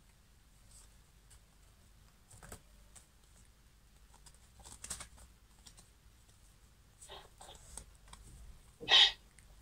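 Playing cards handled and shuffled in the hands: faint scattered card clicks and flicks, with a louder short sound near the end.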